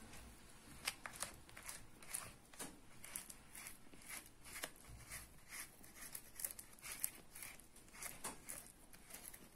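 A spatula scraping the sides of a bowl and stirring thick crepe batter, faint repeated strokes about two or three a second.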